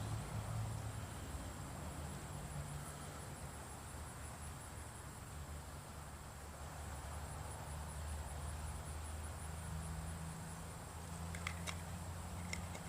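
Outdoor backyard ambience: a steady, high, finely pulsing insect chirring over a low hum, with a few faint clicks near the end.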